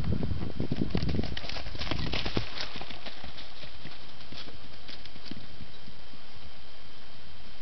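A horse's hoofbeats on dirt ground as it runs past, a quick run of thuds and clicks that is loudest in the first two seconds or so and then fades away.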